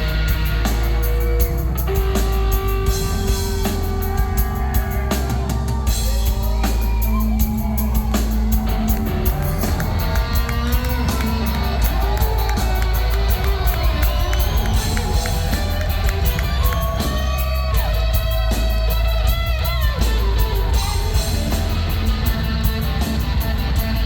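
Live rock band playing loudly: electric guitar lead with many bent notes over a steadily hit drum kit and heavy bass, heard from the audience at a rock concert.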